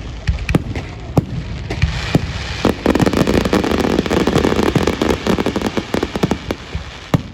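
Fireworks going off: a string of sharp bangs, with a dense crackling volley from about three to six seconds in.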